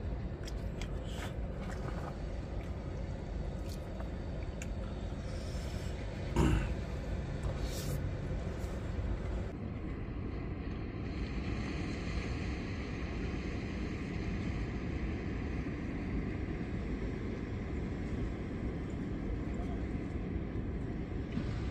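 Outdoor seaside ambience: a steady low rumble of wind on the microphone with ocean surf hissing. A single sharp knock about six seconds in.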